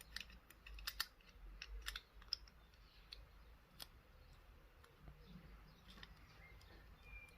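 Faint, scattered clicks and light taps of small metal parts of a Chubb 3u114e five-lever lock being handled and fitted back into the lock case, most of them in the first two seconds.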